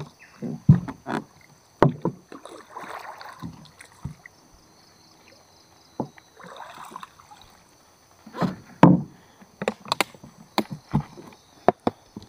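Irregular knocks and thumps on a small boat, with short stretches of water swishing in between.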